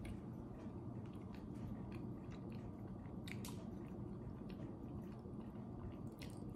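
Faint chewing of a soft, cakey frosted cookie, with occasional small mouth clicks over a low steady background hum.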